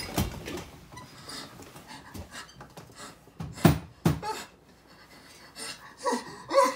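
A man breathing hard and shakily, with a short voiced sob near the end, among knocks and clicks at a desk and computer keyboard. Two loud thumps come about three and a half and four seconds in.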